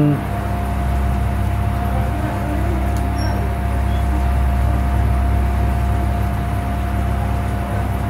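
Steady low machine hum with a faint steady whine over it.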